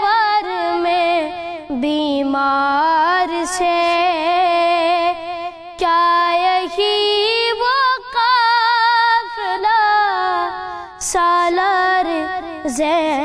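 A young boy's solo voice chanting an Urdu noha lament, holding long, wavering notes with ornamented turns and a few short breaks for breath.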